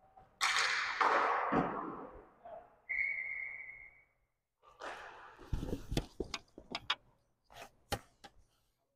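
A referee's whistle blows once, about three seconds in: a single steady note held for about a second, stopping play in an inline hockey game. Before it comes a loud rush of scraping, and after it a run of sharp clacks and knocks from sticks and gear on the concrete rink floor.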